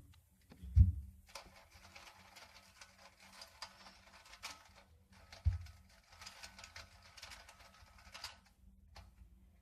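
Small rapid clicking and rattling, like something plastic being handled, in two runs. There is a low thump about a second in and another about five and a half seconds in.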